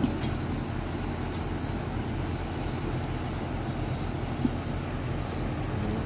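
A heavy construction machine's diesel engine running at a steady low rumble, with one short knock about four and a half seconds in.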